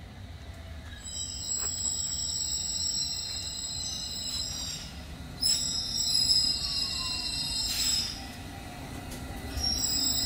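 London Underground S7 Stock District line train arriving and braking to a stop at the platform. It rumbles, with high-pitched squealing in several stretches as it slows. A whine falls in pitch as the train slows, and there is a short hiss near the end.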